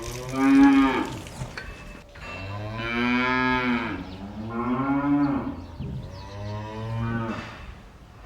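Cattle mooing: four long, separate moos, each lasting one to two seconds, the first about half a second in and the last ending near the end.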